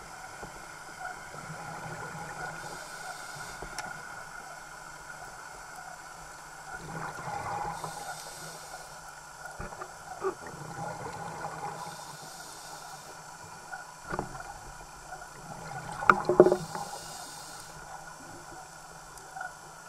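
Scuba diver's regulator breathing heard underwater: a hiss on each inhalation every four to five seconds, and bursts of exhaled bubbles, the loudest about sixteen seconds in.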